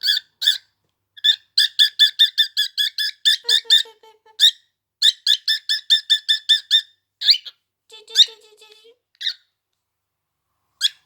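Pet bird chirping in rapid runs of short, sharp calls, about five a second. Two runs of a few seconds each are followed by a few single calls near the end.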